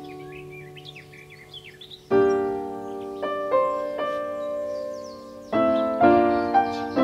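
Background music: soft solo piano, notes and chords struck and left to ring, quieter for the first two seconds and then new chords coming about every half second to second.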